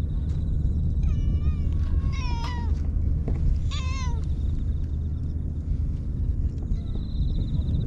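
A cat meowing three times, short calls within about three seconds, each dropping in pitch at the end, over a steady low rumble.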